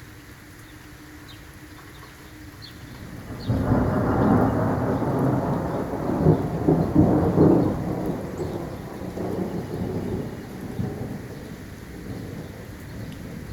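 Thunder over steady rain. About three and a half seconds in, a thunderclap breaks suddenly and stays loud for several seconds with sharp cracks, then rolls off into a fading rumble.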